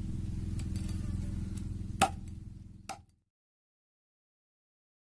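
A knife chopping the spines off a stonefish against a wooden log, done to make the venomous fish safe to handle. There are two sharp strikes, about two seconds in and just under a second later, over a steady low hum, and then the sound cuts off to silence.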